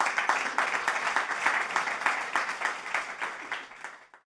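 Audience applauding: many hands clapping together. It tapers slightly and then cuts off abruptly just after four seconds.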